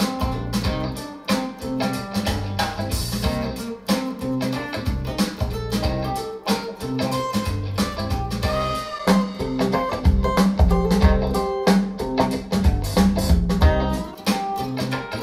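Guitar-led music with a prominent bass line and a steady beat, played back through hi-fi bookshelf loudspeakers as a sound and bass test. The playback switches from a 1983 Radiotehnika S-30 pair to a Bowers & Wilkins 685 S2 pair during the passage.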